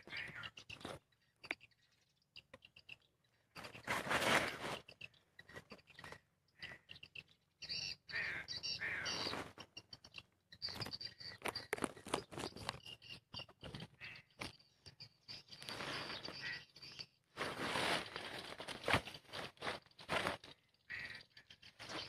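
Swiftlets twittering: a dense run of short chirps and clicks, with a few louder bursts of noise.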